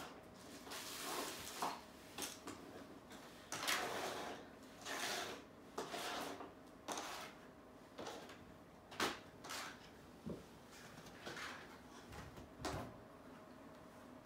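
A series of irregular short rustles and scrapes from art materials being handled, paper and tape moved about on the floor and against the wall, over a faint steady hum.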